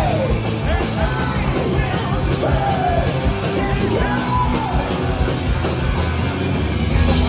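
Heavy metal band playing live: a singer's long, arching vocal lines over guitars, bass and drums.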